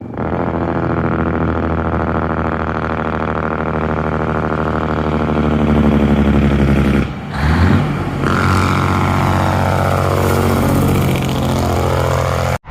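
Large truck engine running with a steady drone. About seven seconds in it drops out briefly and comes back with its pitch sliding up and down as it revs, then cuts off suddenly.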